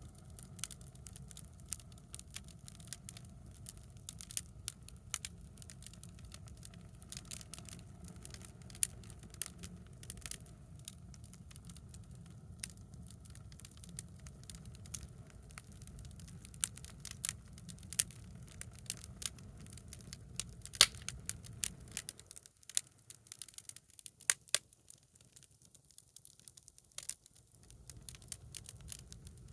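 Bonfire of scrap lumber offcuts burning, the wood cracking and popping sharply and irregularly over a low rumble. The rumble drops away for a few seconds near the end.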